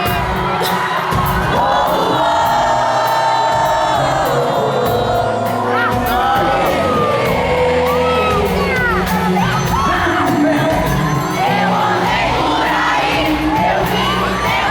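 Live pop band playing through loud amplification, with a steady drum beat and sung melody, while a crowd of fans cheers and sings along. High screams from the crowd are thickest midway through.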